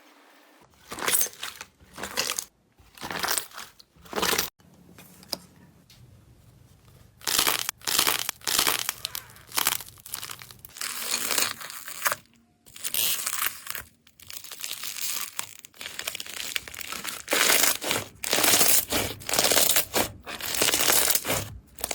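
Slime being squeezed, pressed and pulled by hand, making a run of irregular noisy bursts, each lasting up to about a second with short pauses between them.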